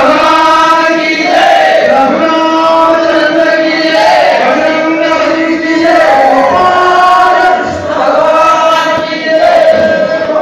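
A group of voices singing a devotional chant in unison, holding long notes in phrases of one to two seconds, with the noise of a crowd around them.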